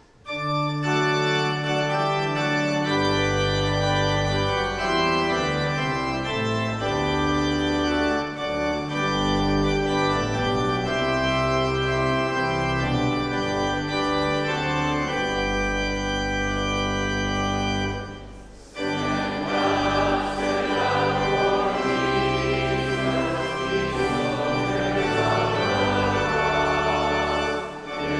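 Organ playing sustained chords over a moving bass line, breaking off briefly about two-thirds of the way through and then resuming fuller.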